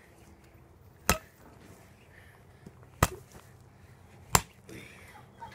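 A baseball bat striking a broken pumpkin three times, each a sharp, short thwack, the blows about one and a half to two seconds apart.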